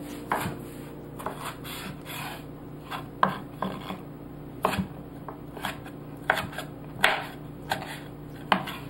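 Chef's knife dicing a ripe tomato on a wooden cutting board: irregular knocks of the blade striking the board, roughly one a second, some coming in quick pairs.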